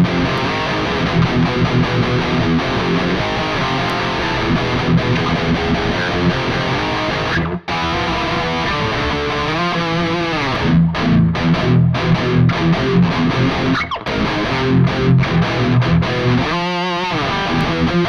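Donner Hush X headless electric guitar played through the Mooer Prime P2's high-gain 'Brutal SLO100' amp preset with its Noise Killer gate on: heavily distorted riffing and chords. It cuts off briefly about seven and a half seconds in, and near the end there are wavering bent notes.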